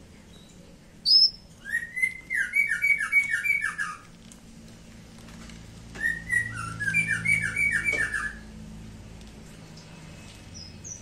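A songbird singing two phrases of quick, repeated notes, each sliding downward, about five a second. The first phrase opens with a sharp, high upslurred note. The second starts about six seconds in.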